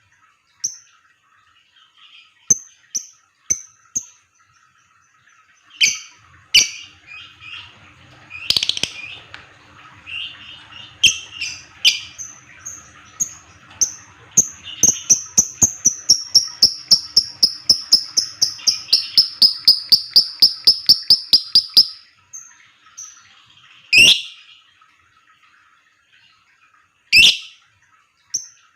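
Lovebird calling: shrill single calls, then a long run of rapid repeated chattering notes lasting about eight seconds that falls slightly in pitch, the long 'ngekek' song sought from fighter lovebirds, followed by two more sharp calls.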